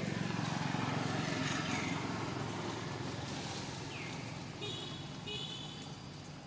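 A motor engine running steadily, slowly fading, with a few short high chirps about two thirds of the way in.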